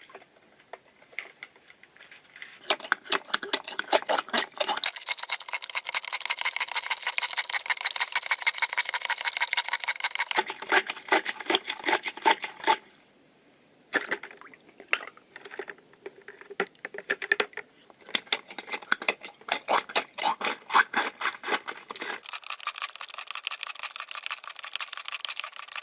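Water splashing and trickling through a plastic Aqua Play water-track toy, in uneven spurts with a short pause about halfway through.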